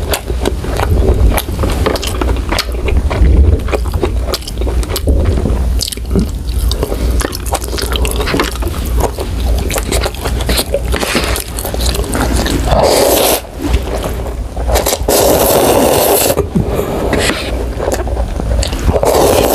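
Close-miked chewing of a mouthful of cooked beef bottom round steak, with many wet mouth clicks. In the second half come several loud slurps of kimchi ramen noodles.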